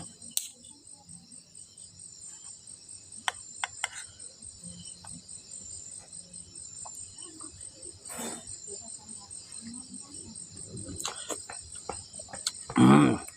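Steady high-pitched, pulsing chorus of insects throughout. Over it come a few light clicks and a short, loud burst near the end.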